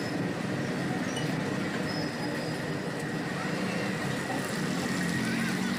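Punugulu deep-frying in a large wok of oil, a steady sizzle over a constant low rumble.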